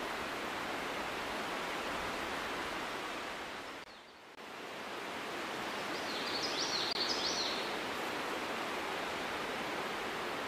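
Steady outdoor rushing hiss that dips briefly about four seconds in. A bird chirps a quick run of high rising notes about six to seven seconds in.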